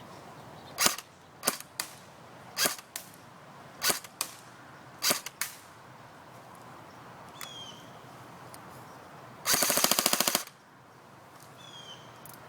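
JG M5-S6 airsoft electric gun firing a series of single shots about a second apart, several followed closely by a fainter second click. Near the end comes one rapid burst lasting about a second.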